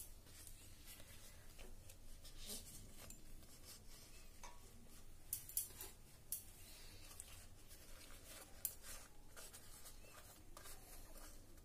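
Faint rustling of banana-leaf parcels and a few light taps as they are set down into an aluminium pressure cooker.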